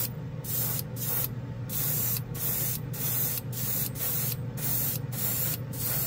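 Gravity-feed airbrush spraying clear coat onto a plastic model car body, its hiss pulsing on and off about twice a second as the trigger is worked. A steady low hum runs underneath.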